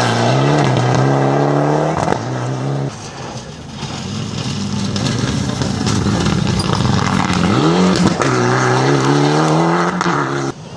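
Rally cars accelerating hard out of a gravel corner, with gravel hissing under the tyres. The engine revs rise in steps through the gears as one car pulls away in the first few seconds. A second car comes up with rising revs late on, and the sound drops away suddenly near the end.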